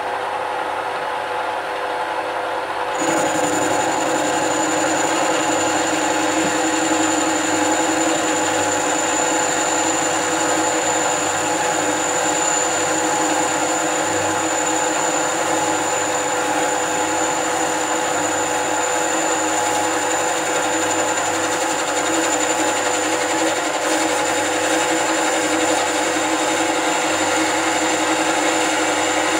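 Mini lathe running steadily while a carbide-insert tool turns a 50 mm cast iron bar. About three seconds in, the sound gets louder and a steady high whine joins it, and it then holds unchanged.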